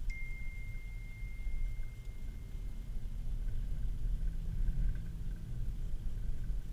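Low, steady rumble inside the cabin of a 2013 Audi A3 2.0 TDI, a four-cylinder turbodiesel, driving on snow: engine and road noise. Right at the start a single high ding sounds and rings out for about three seconds.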